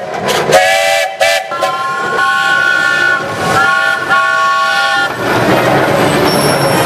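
Steam traction engine whistle blowing: two short toots, then two longer blasts with several pitches sounding together, stopping about five seconds in. After that, a steady mechanical rumble.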